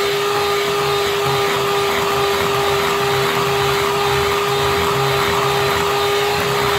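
Electric hand mixer running at one steady speed with a constant whine, its beaters whipping flour-and-milk cake batter.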